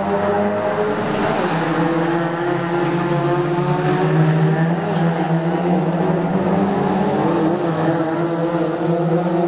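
Several small-engined touring race cars, Toyota Vios and Honda Jazz, running through a tight corner one after another. Their engine notes overlap in a continuous sound that rises and falls as they brake and accelerate away.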